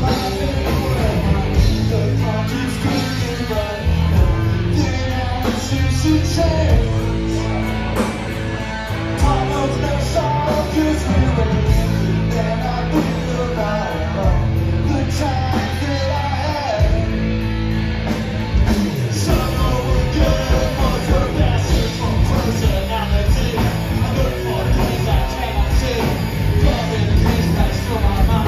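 Live punk rock band playing loud: electric guitars, bass and drums with a singer's vocals over them, heard from the crowd in a club.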